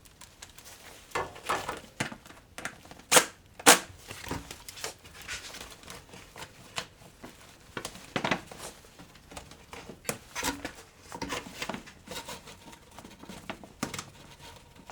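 Tools and parts being handled on an ATV's belt housing during reassembly: scattered clicks, clinks and scraping, with two loud sharp clicks about half a second apart a little over three seconds in.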